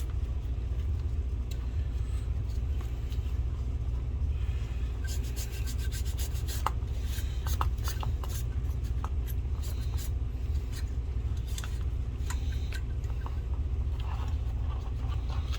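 Hands and tools working inside an opened projector: scattered small clicks and light rubbing on plastic parts, busiest in the middle, over a steady low hum.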